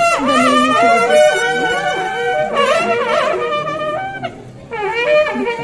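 Wind-instrument music: a melody that bends and slides between notes over a steady held drone note. It dips briefly about four seconds in, then carries on.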